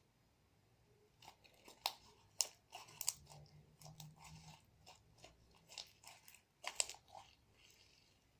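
Homemade glue slime being squeezed and worked in the hands, giving irregular soft clicks and crackly pops.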